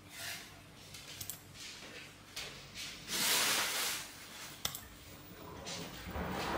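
Soft rustling handling noises, with a louder rush of hiss about three seconds in lasting about a second, and a single sharp click shortly after.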